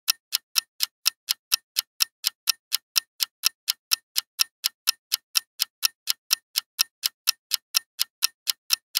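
Clock-tick sound effect of a quiz countdown timer: short, even ticks about four times a second, stopping just before the end.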